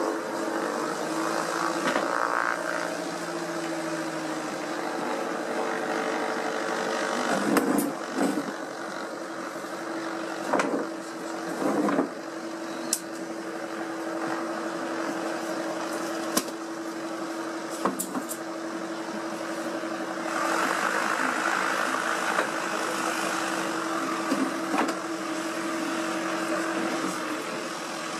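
An engine running steadily throughout, with a few sharp knocks and clatter in the middle.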